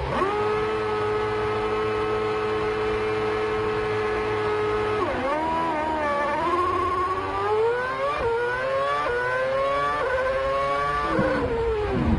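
Onboard sound of a McLaren Formula One car's 2.4-litre V8 at a race start. It is held at steady high revs on the grid, then about five seconds in the note dips as the car launches and climbs through quick upshifts about once a second. The revs fall away near the end as it brakes.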